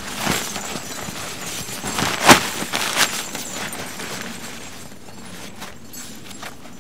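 Tent fabric rustling and crumpling as it is pulled and adjusted by hand, with irregular crackles. A sharp snap a little over two seconds in is the loudest sound. The handling grows quieter in the last couple of seconds.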